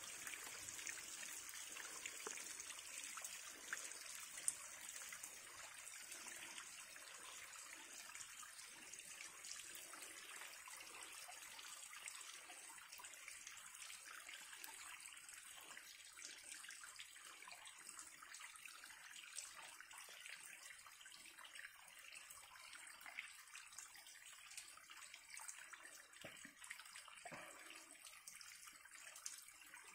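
Faint trickle of water running over rocks in a small mountain cascade: a steady splashing hiss flecked with tiny drips and splashes.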